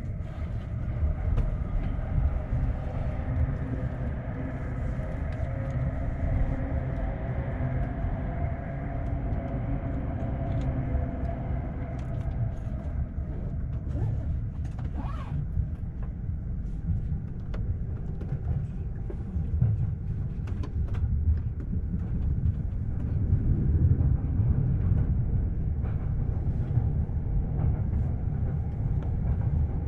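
JR commuter train running, heard from inside the passenger car: a steady low rumble of wheels on rail with scattered clicks. A steady whine sits over the rumble for the first dozen seconds, and a brief rising tone comes about halfway through.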